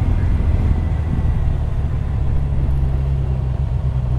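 Kawasaki Ninja 1000SX inline-four motorcycle engine running steadily under way, with a low hum whose pitch shifts slightly about halfway through.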